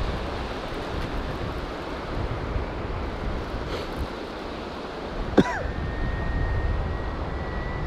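Wind buffeting the microphone over a steady wash of surf. About five seconds in, a sharp falling whistle-like sound, then a thin steady high tone that holds for about two seconds.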